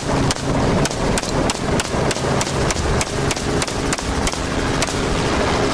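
A rifle fired rapidly from a helicopter's open door, about fifteen sharp shots at roughly three a second, with the helicopter's engine and rotor running underneath.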